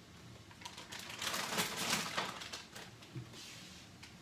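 Refrigerator door pulled open, then a run of clicks and rustles from items being handled and moved inside the fridge.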